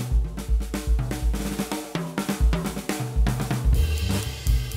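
Background music: a drum-kit beat over a bass line, growing fuller near the end.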